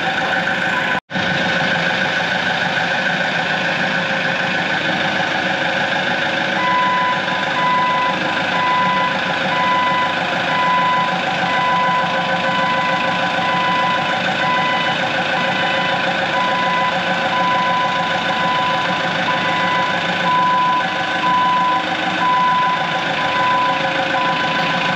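A heavy machine's diesel engine running steadily, and from about six and a half seconds in its backup alarm beeping at a steady pace, a little more than once a second. The sound cuts out for an instant about a second in.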